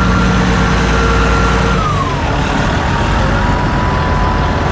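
Diesel engine of a KRDE railcar (diesel multiple unit) running. About two seconds in, its low drone drops away and a high whine falls in pitch, leaving a steady rumble and hiss.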